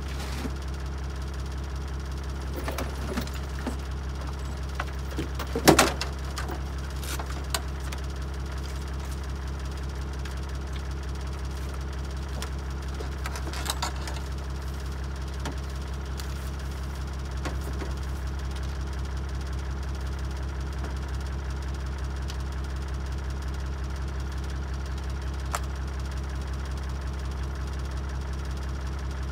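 Toyota Land Cruiser 80 engine idling steadily. Over it come a sharp clunk about six seconds in and lighter knocks as tools and a chainsaw are handled on the steel tailgate.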